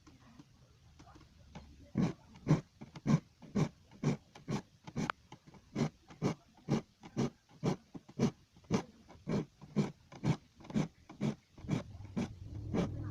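A metal file rasping across the teeth of a wood hand saw in steady, even strokes, about two a second, starting about two seconds in: the saw's teeth being sharpened by hand.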